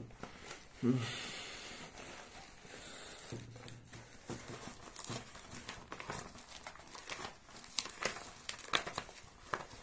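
Crinkling and rustling of something being handled, with many scattered light clicks and ticks through the second half.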